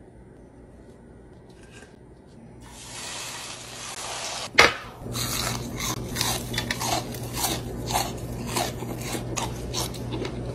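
A steady hiss for about two seconds, then a sharp crunch as a crisp crumb-coated onion ring is bitten, followed by rapid crunchy chewing, about three crunches a second.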